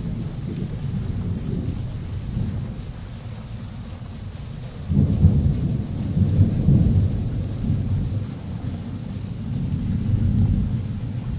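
Heavy rain falling on a concrete courtyard, with low rumbles of thunder throughout; a louder roll of thunder sets in about five seconds in.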